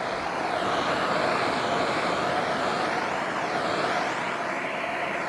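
Handheld gas blowtorch burning steadily with an even hiss, its flame played on copper coolant pipes to soften them into shape.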